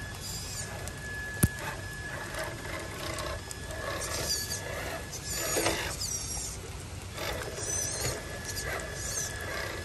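Drivetrain of an MST radio-controlled scale rock crawler working as it creeps up wet rock: a steady thin whine with clicking and gear noise, and one sharp click about one and a half seconds in.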